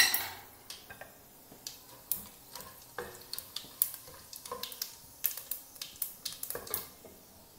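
Wooden spatula stirring and scraping whole spices (cardamom, cinnamon, bay leaves, shahi jeera, white peppercorns) around a metal pot in hot oil, with irregular sharp clicks and scrapes over a light sizzle.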